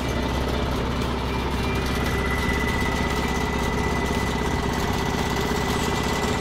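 Ram electric air compressor with a 1987-dated pump, running steadily and pumping up its tank, a continuous machine hum. A thin high whine comes in about two seconds in and holds.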